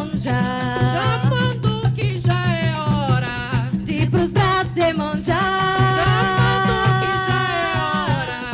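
Coco de roda music played live: a steady drum beat and a shaker rattle under a sung melody, with one long held note from about five to eight seconds in.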